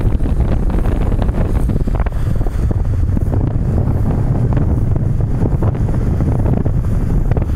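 Wind buffeting the camera's microphone as it moves along a road: a steady, loud rumble.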